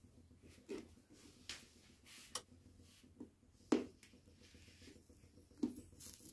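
Thin plastic water bottle crinkling and clicking as it is handled and a heated screwdriver tip is pressed into it to melt holes: about six short, sharp clicks spread out, the loudest about halfway.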